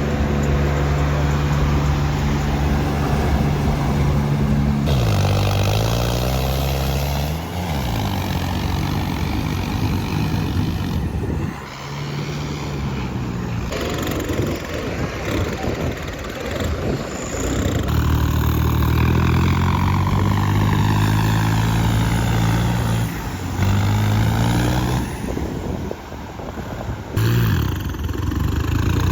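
Heavy diesel engine running under load, its revs dropping and climbing back several times, with a noisier churning stretch in the middle.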